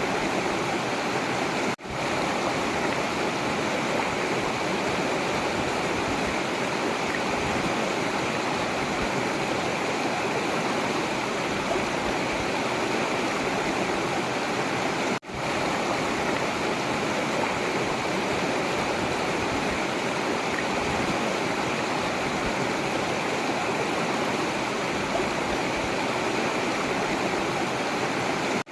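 Forest river water flowing steadily, an even rushing of running water, cut by two very brief dropouts about two seconds in and about fifteen seconds in.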